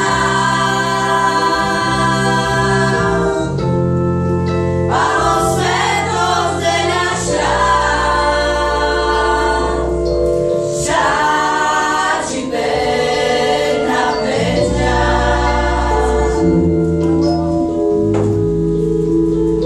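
A group of women and girls singing a Romani song together in phrases over sustained held chords from a keyboard-like backing.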